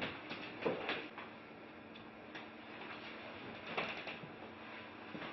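Scattered light clicks and rustles of small items and paper on an office desk, with a cluster in the first second and another about four seconds in.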